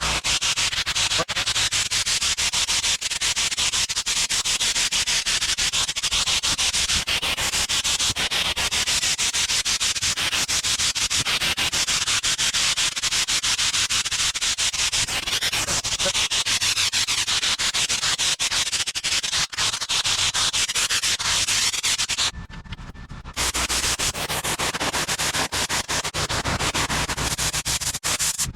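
Pressure-washer spray hissing steadily against a surface, with a short break about 22 seconds in, as when the trigger is let go, and the washer's engine running underneath.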